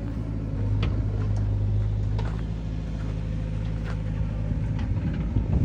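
Heavy diesel engine of a backhoe loader or tractor running steadily, getting louder about half a second in and easing off after a couple of seconds, with scattered knocks and a louder clatter near the end.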